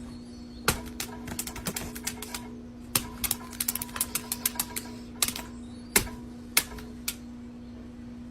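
A rapid, irregular run of sharp clicks and taps, thickest in the middle, over a steady low hum.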